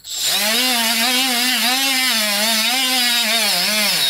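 Battery-powered Milwaukee die grinder spinning up and running a wire brush against the rusty axle collar nut, scouring off rust. The motor pitch wavers as the brush bears down and eases off, over a harsh scraping hiss from the wire on the metal.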